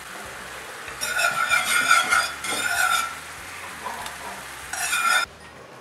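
Wire whisk stirring a thick cream-and-butter sauce in a cast iron skillet, its wires scraping and rattling against the pan in two spells: a longer one starting about a second in and a shorter one near the end, which cuts off suddenly.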